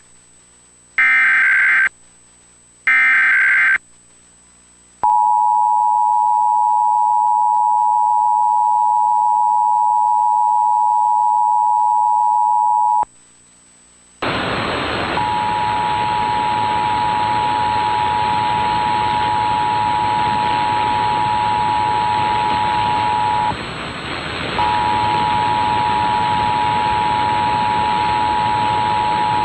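Emergency Alert System tones: the last two short bursts of the SAME end-of-message data screech, then the two-tone EAS attention signal held steady for about eight seconds. After a second's pause the attention signal starts again over a steady hiss, dropping out for about a second near the two-thirds mark.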